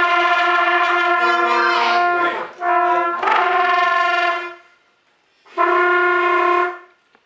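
Trumpets playing long held notes. There is a change of pitch about two seconds in and another held note after it, then a short break and one final held note of about a second.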